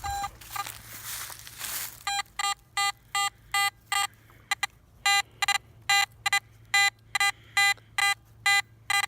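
Garrett AT Max metal detector giving a clear, repeated mid-tone beep over a buried target, about two and a half short beeps a second, each time the coil sweeps across it. The beeping starts about two seconds in, after a rustling noise.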